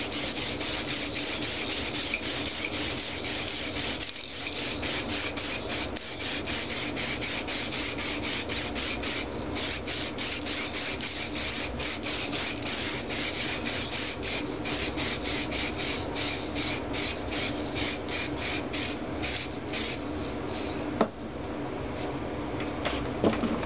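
Aerosol spray-paint can hissing as paint is sprayed onto an engine block, the hiss broken by many brief pauses between passes. About 21 seconds in there is a sharp knock, and the hiss is weaker after it.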